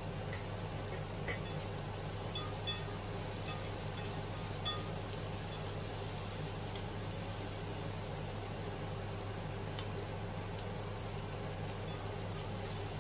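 Vegetables frying gently in oil in a nonstick pan over a steady low hum, with a few light clicks of wooden chopsticks against the pan as they are stirred.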